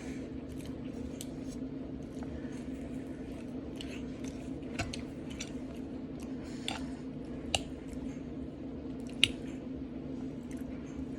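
Close-up mouth sounds of a person chewing food, with a few sharp clicks, over a steady low hum.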